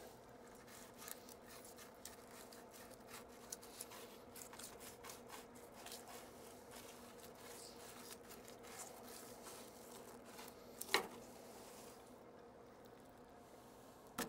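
Fillet knife cutting through a redfish's rib bones on a wooden cutting board: faint, irregular crunching and scraping clicks, with one sharper crack about eleven seconds in.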